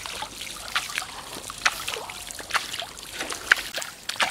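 Pond water splashing and dripping as a hand flings and scoops it at the shallow edge: a string of irregular small splashes, the loudest about one and a half seconds in and again near the end.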